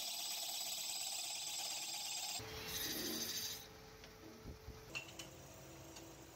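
Metal lathe turning a brass tap part: a steady high scraping hiss of the cutting tool on the spinning metal. The sound changes at about two and a half seconds and stops a second later. After that come a few light clicks and knocks as a part is handled at the chuck.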